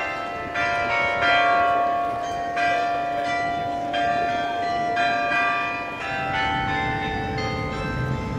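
Tower bells of the Clérigos Tower carillon ringing a tune, each bell struck in turn and left ringing on under the next. A low rumble comes up near the end.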